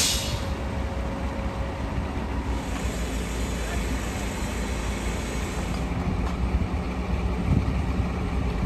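Heavy engines running steadily, a continuous low rumble with a faint drone over it.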